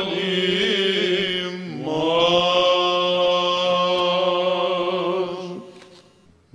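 Male cantors singing Byzantine chant, the melody drawn out in long held notes over a steady low drone (the ison). The phrase dies away shortly before the end, leaving a brief near-quiet pause.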